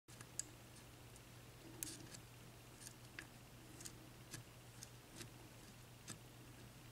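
Faint, irregular metallic clicks of lock picks working the pins of a re-pinned Sargent 6-pin lock cylinder, over a steady low electrical hum.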